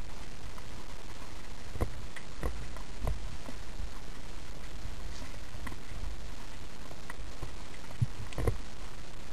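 Underwater ambience as heard through a camera housing: a steady low rush of water, broken by a few scattered clicks and knocks, two near the start and two close together near the end.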